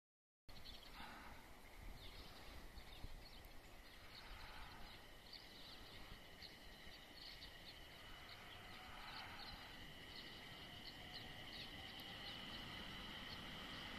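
Birds chirping in short, repeated calls over faint outdoor ambience. In the second half a faint steady high tone builds and the level slowly rises as a train draws near.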